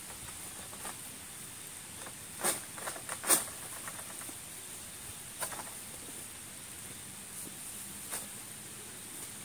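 A long-pole harvesting sickle hacks at an oil palm frond stalk, giving a few sharp cracks. The two loudest come close together a couple of seconds in, and weaker ones follow. Underneath runs the steady high hiss of light rain.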